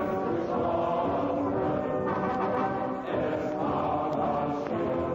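Background music: a choir singing slow, held chords, with new chords coming in about two and three seconds in.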